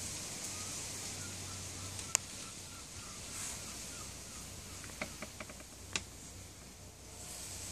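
A dog nosing a ball around on patio paving: one sharp click about two seconds in and a cluster of light taps around five to six seconds, over a steady outdoor hiss.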